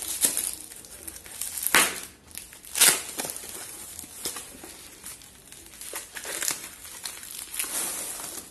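Plastic packaging crinkling and tearing as tape and plastic film are peeled off a foam-wrapped box, in irregular rustles with two sharper, louder rips about two and three seconds in.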